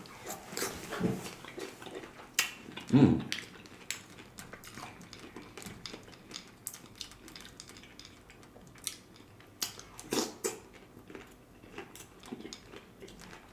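Close-miked eating sounds: irregular wet smacks and small clicks of chewing spoonfuls of fruit and pomegranate seeds in coconut water, with a short low hum of the mouth about three seconds in.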